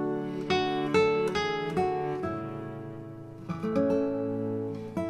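Background music: an acoustic guitar plucking and strumming chords, each struck sharply and left to ring.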